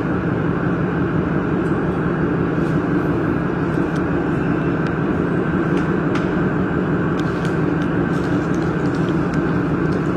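Steady machinery hum, a low, even drone with a few faint ticks and taps.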